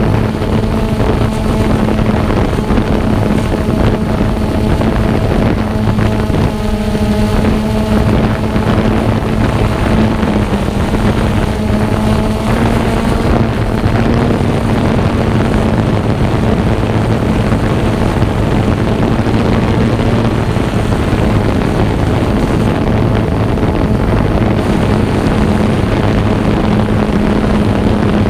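Xiro Explorer quadcopter's electric motors and propellers running in flight: a steady, loud hum whose pitch wavers slightly now and then, over rushing wind noise.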